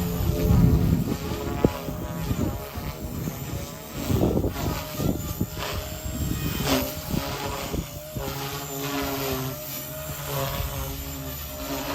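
Blade Fusion 180 micro RC helicopter in flight: its electric motor and rotors whine and buzz, the pitch shifting now and then as the throttle and manoeuvres change.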